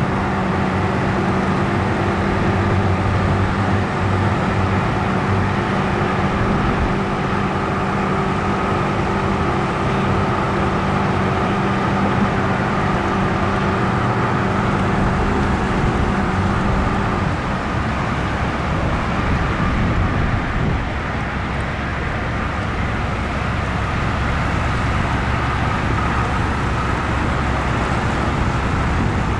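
Mercury 850 85 hp two-stroke outboard motor running as the boat cruises, a steady drone; about two-thirds of the way through its pitched hum fades and the sound turns rougher and slightly quieter.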